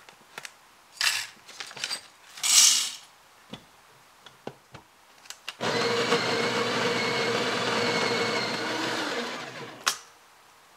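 Coffee beans rattling into a small cup in a few short pours. Then the Breville Barista Express's built-in conical burr grinder runs steadily for about four seconds, grinding a single dose, and stops with a click.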